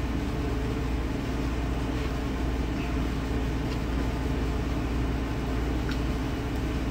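A steady low machine hum, with a few faint light clicks or ticks.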